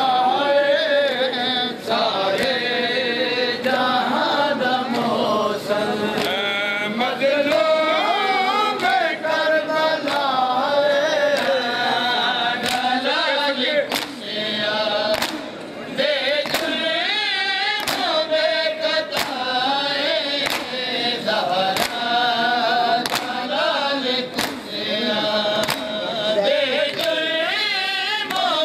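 A noha mourning lament sung in chant by male voices. Sharp slaps of bare-chested mourners beating their chests (matam) cut through it again and again.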